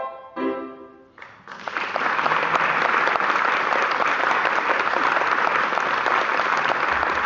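Grand piano sounding the last chords of a piece, then audience applause breaking out about a second in and continuing steadily.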